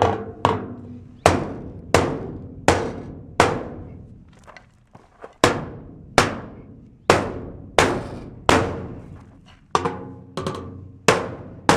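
A hammer striking the steel wall panel of a portable office container, knocking out a bent corner. About fifteen hard blows, roughly one every 0.7 s, each ringing out like sheet metal, with a pause of about two seconds near the middle.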